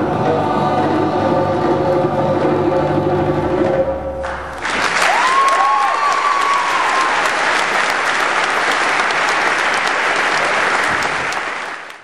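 Boys' choir singing with drum accompaniment, the song ending about four seconds in. The audience then breaks into sustained applause, with a rising whoop of cheering just after it starts, until the sound cuts off at the end.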